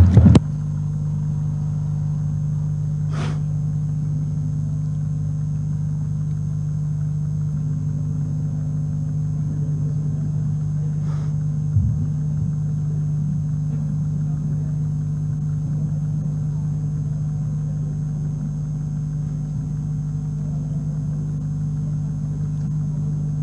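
Steady low electrical hum with a faint high whine, broken only by two faint clicks about three and eleven seconds in.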